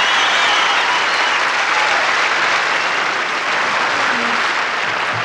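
Large audience applauding steadily, easing off slightly toward the end.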